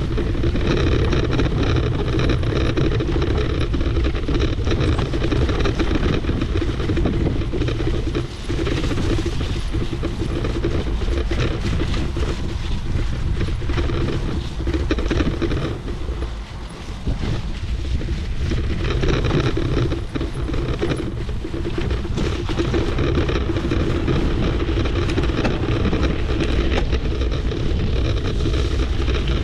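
Trek Powerfly 4 electric mountain bike riding a rough trail: continuous tyre rumble and rattle over the ground, with wind on the microphone, easing briefly a few times.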